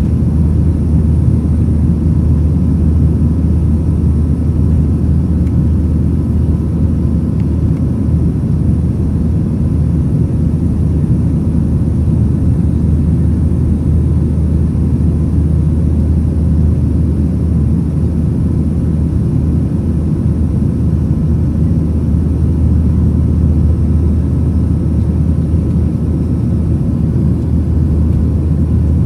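Boeing 737-900ER in flight, heard inside the cabin over the wing: steady low rumble of its CFM56-7B engines and the airflow, with faint steady whine tones above it.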